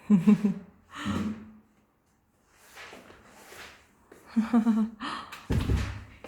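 Newborn baby's short fussing vocal sounds: brief whimpers and grunts with breathy snuffles between them, and a low bump near the end.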